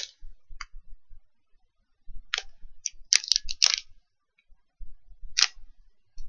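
Scattered sharp clicks and crackles of a novelty pen and its wrapping being handled close to the microphone, bunched together in the middle with one last click about two-thirds of the way through.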